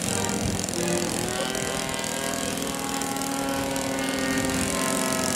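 Radio-controlled scale model airplane's motor running with its propeller spinning on the ground, settling into a steady pitched drone about a second in.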